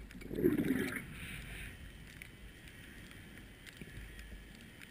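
Underwater sound picked up through a camera housing: a short rush of water noise in the first second, then a quiet, even hiss with a few faint clicks.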